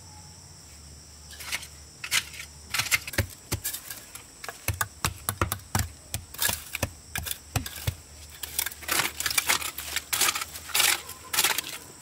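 Bricklaying: irregular sharp clinks and taps of bricks and a trowel knocking against each other, several a second, starting about a second and a half in.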